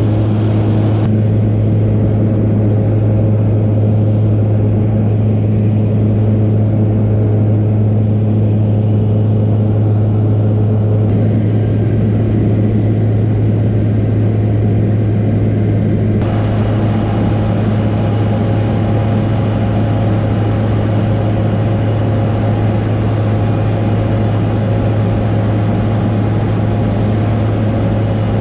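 Steady drone of a light single-engine plane's piston engine and propeller, heard inside the cabin: a deep, even hum with a few fixed higher tones over a rushing noise. The brightness of the noise shifts abruptly three times, about a second, eleven seconds and sixteen seconds in.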